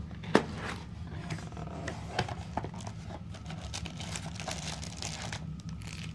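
Cardboard mailer box being opened by hand: a sharp click about a third of a second in, then scattered scraping of cardboard and crinkling of the plastic bag around the folded solar panel, over a steady low hum.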